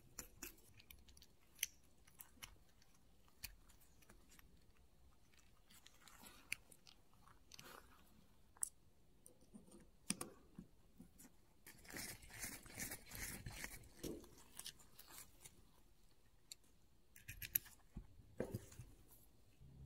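Faint, scattered clicks and taps of a SRAM Guide brake lever's small parts being handled and fitted by gloved hands, with a stretch of scraping and rustling about twelve seconds in.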